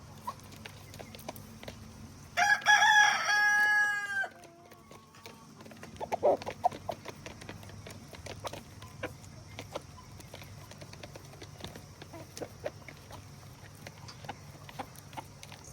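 A rooster crows once, about two and a half seconds in, a loud call of nearly two seconds. A few seconds later chickens cluck in a quick run of short notes, and scattered short clucks and clicks go on over a steady low hum.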